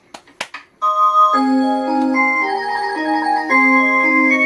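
Musical clock: a few sharp clicks, then about a second in it begins playing a melody, several notes sounding together and stepping from note to note.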